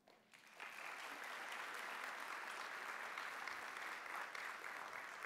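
Audience applauding, coming in about half a second in and holding steady.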